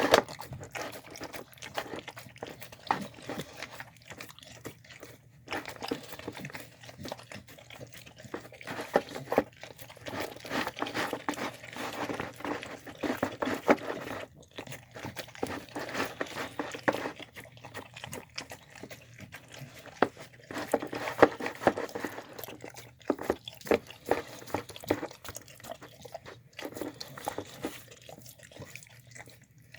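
A dog eating a meal of chicken, apple, white beans and rice, chewing and crunching in a quick, irregular run of small clicks and smacks.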